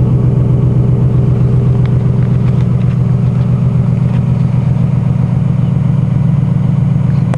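2008 Ford F-150 idling through a full stainless steel Magnaflow dual exhaust with an 11-inch Magnaflow muffler and slash-cut tips behind the rear wheels. The exhaust note is low and steady, with no revving.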